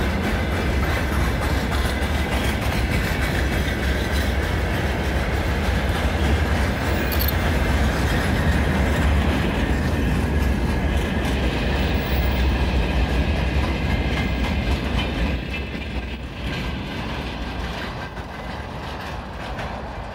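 Freight train wagons rolling past, their wheels clattering over the rail joints over a steady low rumble. The sound fades over the last few seconds as the end of the train draws away.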